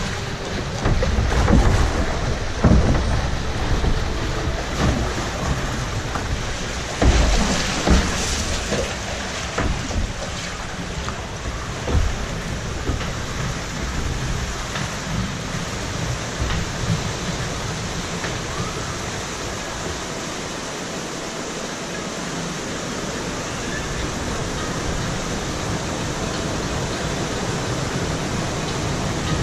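Log flume boat floating along its water channel, with water rushing and splashing around it and knocks of the boat against the channel, busiest in the first twelve seconds with a louder surge about eight seconds in.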